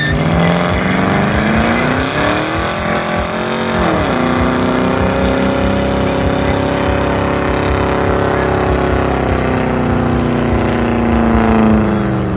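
A car's engine is held at high revs through a burnout, with its rear tyres spinning on the asphalt. The revs climb, drop sharply about four seconds in, then hold high and steady before falling off near the end.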